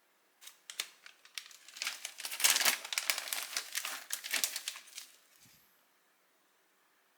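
Crinkling and rustling of plastic or paper packaging being handled, a dense run of crackles lasting about five seconds.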